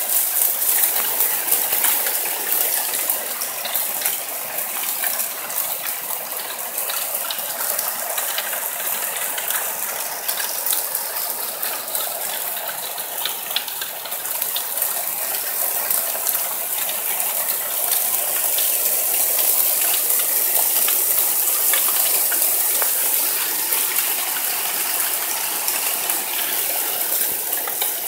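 Heavy downpour of rain and hail: a dense, steady hiss of rain with many small sharp clicks of hailstones striking roofs, paving and glass.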